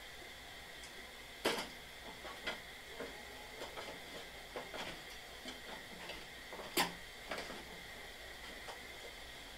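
Scattered metal clicks and clinks of hand tools and parts being handled on a SNO-Tek snow blower's belt drive, with two louder knocks, about a second and a half in and again near seven seconds.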